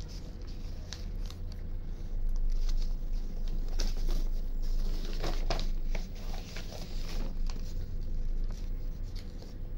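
Scattered rustles, crinkles and light taps of a sheet of self-adhesive contact paper being handled over a cardboard box lid, busiest in the middle.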